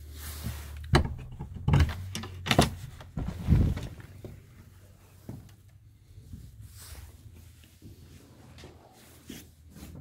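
A wooden cellar door with a metal hook latch being unlatched and opened: a run of sharp wooden knocks and clatters in the first few seconds, followed by quieter shuffling and light knocks.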